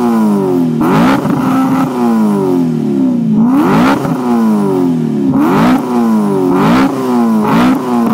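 BMW E9x M3's 4.0-litre V8 revved in a stationary car through an X-pipe and race muffler aftermarket exhaust: about six quick throttle blips, each rising fast and then falling back.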